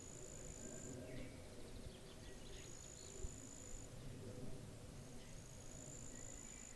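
Pond-side nature ambience: an insect buzzes high and steady in phrases of about a second, repeating roughly every two and a half seconds. Scattered short chirps and a low steady rumble of wind run under it.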